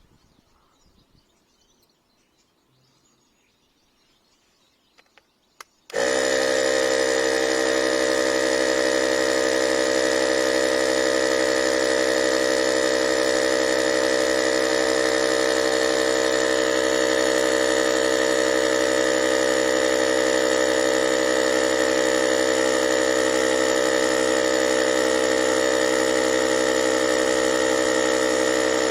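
Near silence for about six seconds, then a cordless tyre inflator's compressor starts abruptly and runs loud and steady, a constant buzzing drone with an unchanging pitch.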